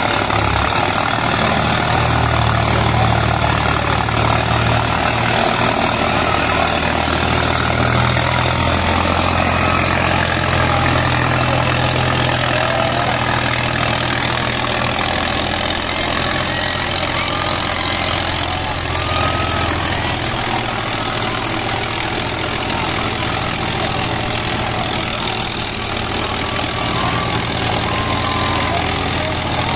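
Diesel tractor engines running steadily under heavy pulling load, with the low engine note shifting slightly in pitch a couple of times.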